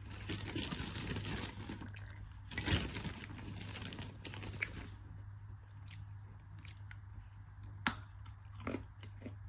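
A person chewing and crunching a piece of dry edible clay. There is a loud crunch about three seconds in, then quieter chewing, and a sharp bite near the end.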